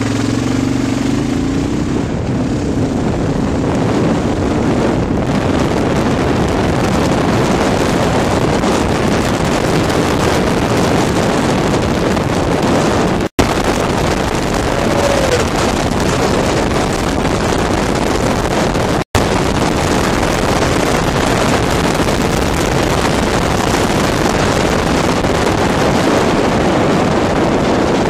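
Wind buffeting the microphone of a moving Kawasaki KLR650 dual-sport motorcycle, with its single-cylinder engine running underneath as a steady noisy rush. The sound cuts out for an instant twice, near the middle.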